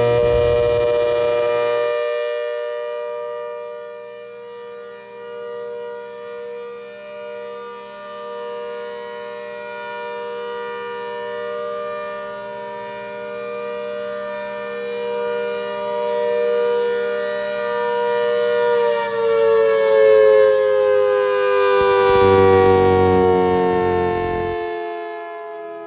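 ACA Hurricane electromechanical siren sounding a steady tone, its loudness swelling and fading about once a second. About 19 seconds in, its pitch starts to fall steadily as the siren winds down.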